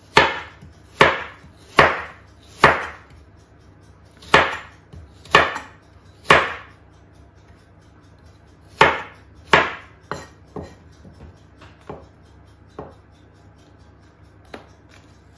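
Chef's knife chopping carrots on a wooden cutting board: separate, uneven knocks about one a second, firm through the first ten seconds and lighter near the end.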